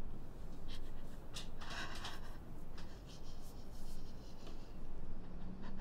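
Quiet room tone with a scattering of soft, short scratchy rustles.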